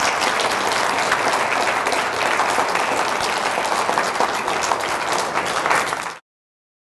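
Audience applauding: dense, steady clapping from a full hall that cuts off abruptly near the end.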